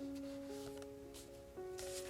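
Soft background music of slow, held notes, with a brief paper rustle near the end.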